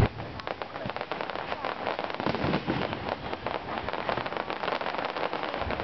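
Fireworks display: dense, rapid crackling and popping from many bursting shells, with a loud bang right at the start.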